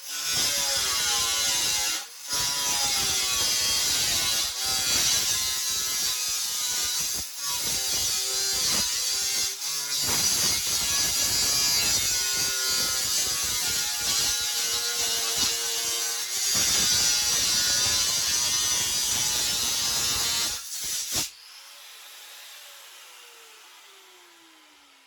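Electric cutter with a diamond-tipped cutting disc cutting through the pit bike's metal frame, its motor pitch sagging and recovering under load, with a few short breaks where the blade comes off the metal. About 21 seconds in it is switched off and the motor spins down with a falling whine.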